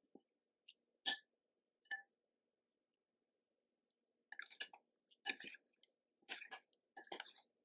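Raw chicken breast pieces being mixed by hand and with a metal spoon in a wet marinade paste in a glass bowl. Two sharp clicks, about a second and two seconds in, then a run of wet squelching and clicking from about four seconds on.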